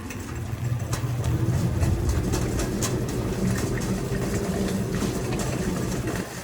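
Shopping cart rolling across a hard store floor: a steady low rumble with light rattling clicks.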